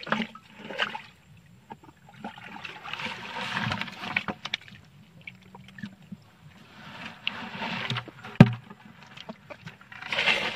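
Muddy water splashing and sloshing in irregular bursts as hands scoop through shallow canal mud, with one sharp knock about eight seconds in.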